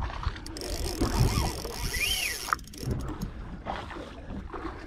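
Wind and water noise on board a fishing boat at sea, over a steady low rumble, with one short high chirp that rises and falls about two seconds in.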